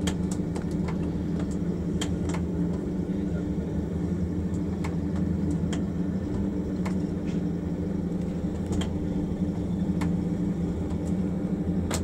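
Steady low machine hum with scattered sharp metallic clicks, in a shed where railway carriages are having their wheelsets changed for a different track gauge.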